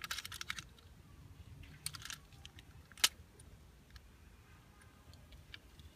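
Small plastic fidget cubes being worked in the hand: a quick rattle of light clicks at the start, a few more clicks about two seconds in, and one sharp click about three seconds in.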